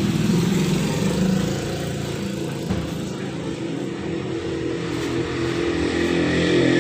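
A motor engine running, its level rising and falling slightly. Music with guitar comes in near the end.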